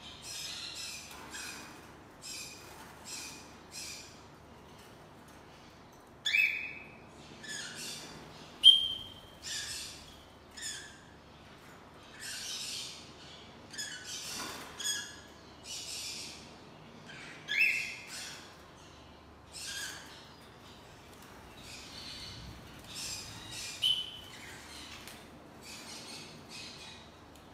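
Red-rumped parrot calling: a long series of short, hissy chattering calls, with a few sharper, louder pitched notes among them.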